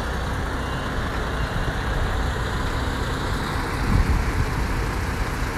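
Steady low rumble of a heavy truck's engine running, with a brief thump about four seconds in.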